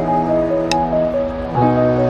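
Background music: long held chords that change about one and a half seconds in, with a single light percussive tick.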